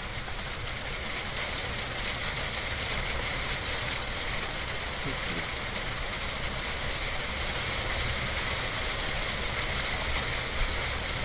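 Steady rain falling, with a low rumble underneath and one brief tap near the end.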